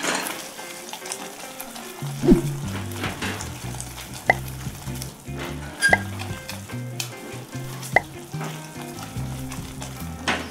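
Caramel syrup of melted sugar and a little water boiling and sizzling in a stainless steel saucepan while being stirred, with a few sharp knocks of the spoon against the pan.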